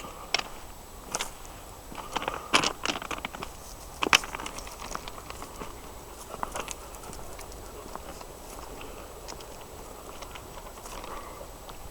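Irregular crunching and crackling, a cluster of sharp crunches about two to four seconds in, then sparse faint clicks.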